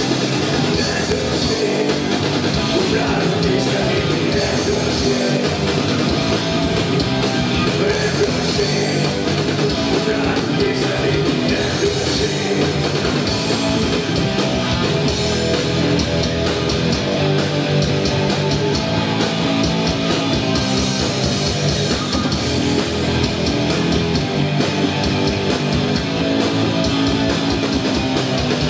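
Live rock band playing loudly on electric guitar, bass guitar and drum kit.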